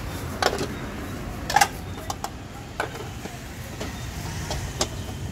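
Aluminium pan lids clinking against metal cooking pans as they are lifted and set back down. It is a scattered series of sharp clinks, the loudest a quick double about one and a half seconds in, over a low steady rumble.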